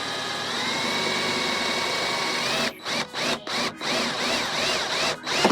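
Electric drill boring the mirror-mount hole through the 1964 Impala's body panel: a steady whine that rises in pitch and holds for about two and a half seconds, then short trigger bursts, about two a second, each rising and falling in pitch.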